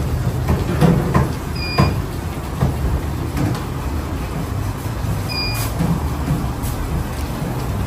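A vehicle engine rumbling low and steadily, with scattered knocks and clatter. Two short high beeps come about two seconds in and again a few seconds later.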